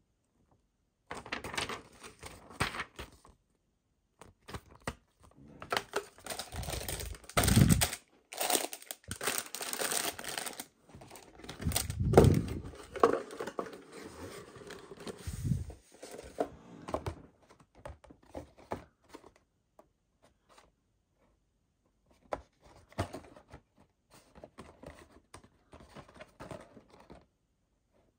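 Paper and cardboard being handled: an instruction booklet's pages rustling and crinkling, and light cardboard model-kit boxes sliding and tapping in the hands. The rustling comes in irregular bursts, thinning out to a few faint touches past the middle before picking up again near the end.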